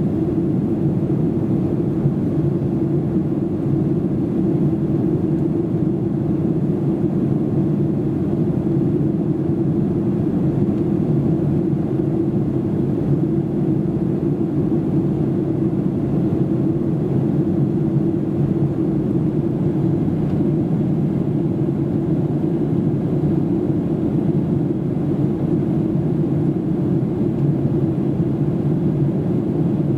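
Boeing 737-800 cabin noise in flight: a steady, low drone of the CFM56-7B turbofan engines and airflow, with an even hum and no change in level.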